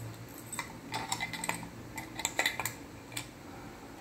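Aluminium reflector dome of a clamp light being handled, giving irregular light metallic clinks and rattles in short clusters.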